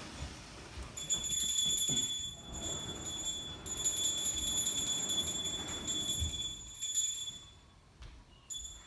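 A high-pitched ringing that starts about a second in, breaks off briefly around two and a half seconds in, then carries on and fades out near the end.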